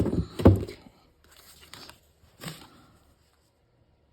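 Craft tools and paper being handled on a tabletop: a few knocks and clatters in the first second, the loudest about half a second in, a soft rustle, and one more knock about two and a half seconds in.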